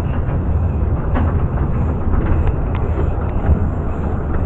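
Miniature steam railway train moving off and running along the track, heard from on board: a steady low rumble of the carriages with a few scattered clicks of the wheels over the rails.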